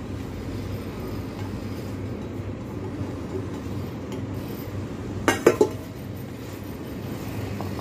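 Silicone spatula scraping chopped choy sum out of a stainless steel bowl into a plastic mixing bowl, with a pair of sharp metallic clinks a little past halfway. A low steady hum runs underneath.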